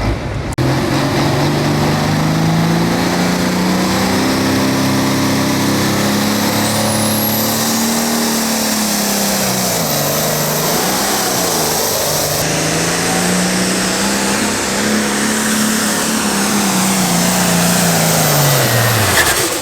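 Pro Farm class diesel pulling tractor running flat out under the load of the sled. Its engine note holds high, sags and wavers around the middle, climbs back, then drops away near the end.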